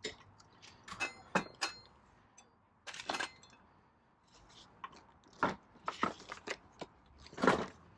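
Scattered clicks, knocks and light metallic clinks as the Razor MX650's plastic seat and rear body are handled and pressed back into place, with a short clatter about three seconds in.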